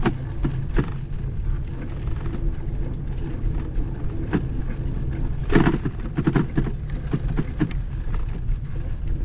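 Steady low rumble of wind buffeting a moving action camera's microphone, with scattered knocks and rattles, a cluster of them about five and a half seconds in.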